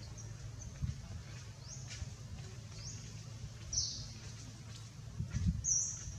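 Short, high bird chirps, several sweeping upward, coming every second or so, the loudest about four seconds in and again near the end, over a steady low rumble.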